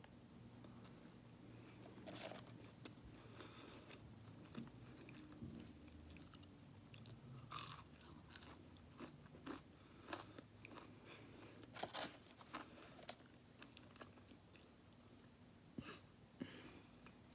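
A person chewing and biting food, quiet, with scattered short crunches and clicks.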